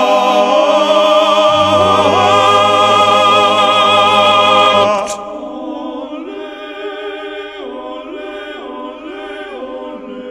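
Operatic tenor voices holding a loud final note with vibrato over instrumental backing, cutting off about five seconds in. The backing music then carries on more quietly through a few chord changes.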